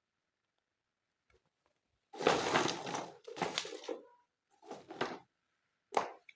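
Hands handling toy packaging and plastic toys: three short rustling, scraping bursts, then one sharp knock near the end.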